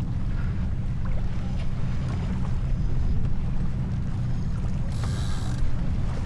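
Steady low rumble of wind and water rushing past a J24 keelboat under sail, with a brief high rasping hiss about five seconds in.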